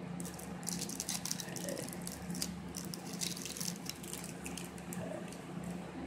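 Crinkling and crackling of a sealed trading-card deck's shiny wrapper as it is torn off, followed by the cards being handled; the crackling is dense at first and thins out after about four seconds.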